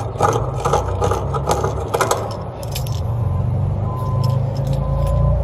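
Metal hand tools and copper pipe fittings clinking and scraping as they are handled, a quick run of sharp clicks in the first three seconds, over a steady low hum.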